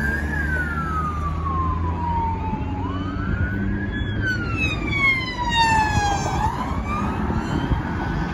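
Police sirens wailing, each slow rise and fall taking about three seconds, over traffic noise. A second, higher siren sounds with the first from about halfway through.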